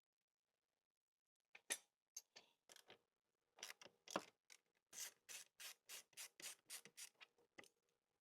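Faint rubbing and scraping strokes: a few scattered scrapes, then a steadier run of about three strokes a second through the second half.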